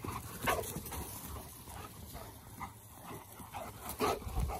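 Young Cane Corsos running close past, with short dog noises and the thud of paws on grass. There is a louder thump about half a second in and another around four seconds in.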